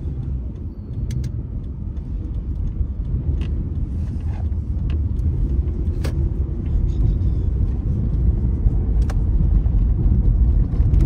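Car driving, heard from inside the cabin: a steady low rumble of engine and tyres that grows gradually louder as the car gathers speed, with a few light clicks.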